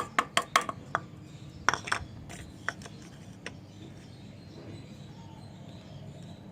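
Light clinks and taps of kitchenware as herbs and pepper are put into a stone grinding mortar: a quick cluster of sharp clinks in the first second, then a few scattered taps up to about three and a half seconds in.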